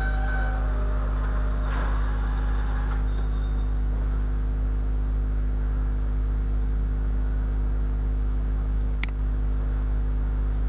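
Steady low electrical hum. The end of a music track fades out in the first moment, and two short clicks come near the end.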